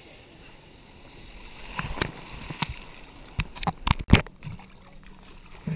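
Seawater sloshing and slapping against a waterproof camera at the surface: a low wash at first, then from about two seconds in a run of sharp splashes and knocks, loudest around four seconds.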